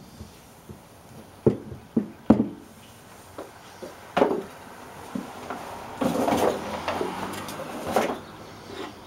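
Handling noises on a wooden workbench: a few sharp knocks as the rebuilt brake caliper is moved about and set down on the bench, then a couple of seconds of scraping and rustling near the end.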